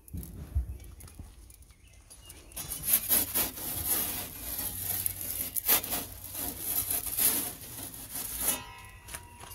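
A metal pizza turning peel scraping and sliding over the stone inside an Ooni Koda pizza oven as the dough is swivelled. There is a run of scrapes from about two and a half seconds in until near the end.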